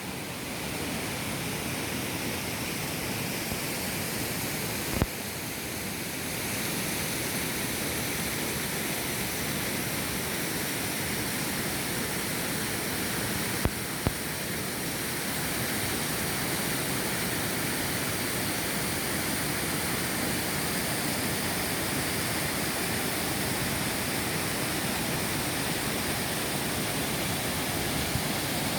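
Waterfall rushing with a steady, even roar of falling water, broken by a few brief sharp knocks near the middle.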